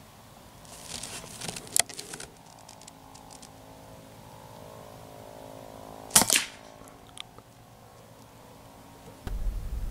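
A shot from a Daystate Mk4 pre-charged pneumatic air rifle: one sharp crack about six seconds in, with a second sharp sound a fraction of a second after it. Before it, a few clicks and rustle as the rifle is handled; a steady low rumble starts near the end.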